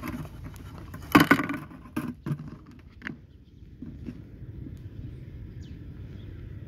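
Handling noise as fingers reach into a small plastic cup of water to pick out bait. There is a loud rustling knock about a second in and a few lighter clicks after it, over a low steady rumble.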